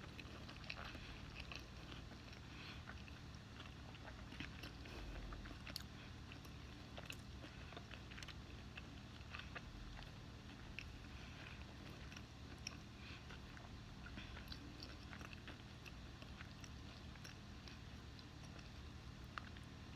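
A person eating: faint chewing and biting with scattered small crunches and mouth clicks, over a low steady hum.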